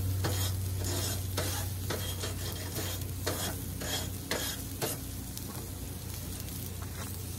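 Steaks sizzling on a hot grill while metal tongs scrape and clack across the grooved grill grates to clean them, a few short scrapes and knocks through the first five seconds, over a steady low hum.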